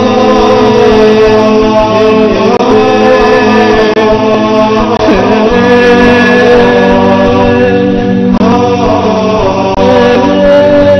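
Closing theme music: a voice chanting long held notes that bend slowly in pitch, over steady sustained tones.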